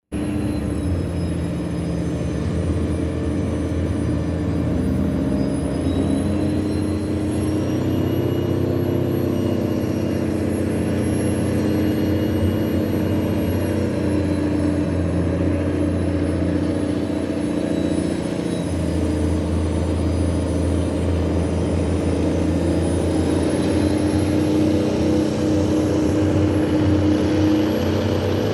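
A tugboat's engine running hard under load, a steady low drone with a thin high whine above it. The pitch shifts a little several times.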